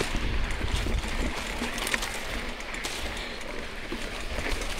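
Mountain bike rolling along a dirt singletrack: a steady rush of tyre and wind noise with a low rumble, and scattered light clicks and rattles from the bike.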